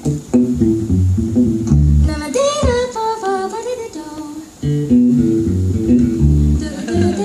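Live music from a duo: acoustic guitar and bass guitar playing, with a woman singing over them.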